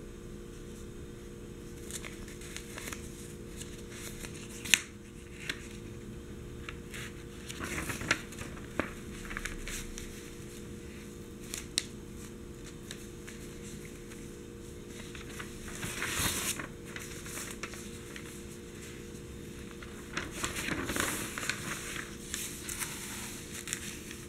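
Newspaper pages being handled: scattered fingertip taps on the newsprint and short rustles of the paper, with longer bursts of page rustling as the sheets are moved and turned, about two-thirds through and again near the end.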